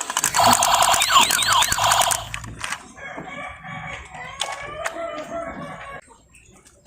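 A loud, rapid buzzing for about two seconds, then a rooster crowing for about three seconds.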